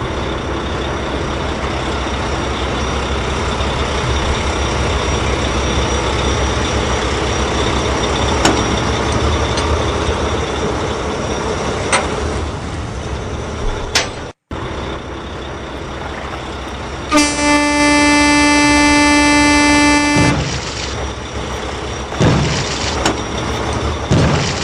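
Truck engine running steadily, then, after a break, a horn sounds one long, steady note for about three seconds.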